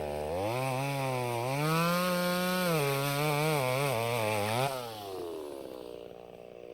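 Chainsaw engine revving up and down over and over, its buzzing pitch rising and falling; about five seconds in it eases off and winds down.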